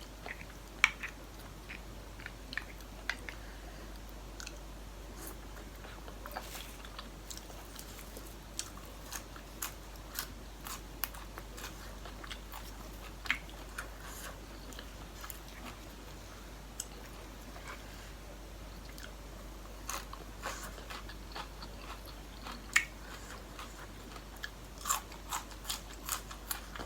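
A person chewing and biting food close to the microphone, with crunches and wet mouth clicks at irregular intervals and a few louder ones late on.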